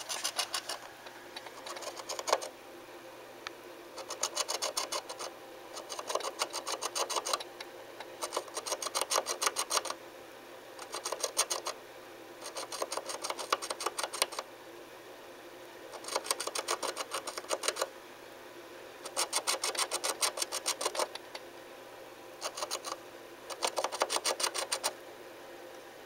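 An animal scratching and digging inside a wall: bursts of rapid scratching, each a second or two long, come about eleven times with short pauses between.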